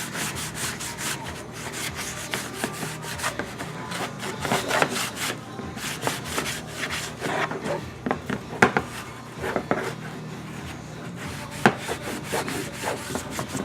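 Wet scrub pad scrubbing the inside of an oxidized plastic dirt-bike front fender: an uneven run of short, rough rubbing strokes.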